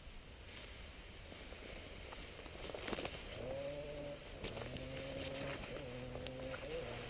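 Footsteps brushing through dry grass, with a few crackles of stalks and twigs. About halfway in, a low steady hum joins them, coming in four stretches of about a second each with short breaks.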